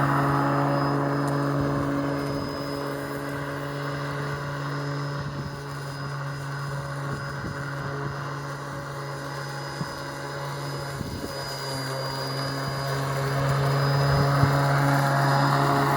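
Ryobi 18V ONE+ cordless lawn mower running, its electric motor and spinning blade giving a steady hum that drops in level through the middle and grows louder again toward the end, with a couple of small knocks.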